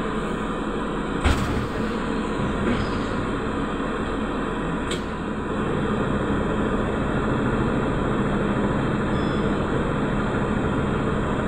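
Steady hum and rumble inside a Trolza-5275.05 Optima trolleybus at a near standstill, with a single knock about a second in and a short click around five seconds.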